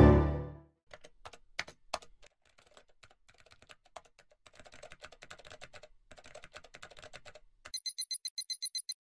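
Quick, quiet typing on a computer keyboard. Near the end a rapid high-pitched electronic beeping starts, pulsing several times a second: an incoming-message alert as a holographic email icon pops up.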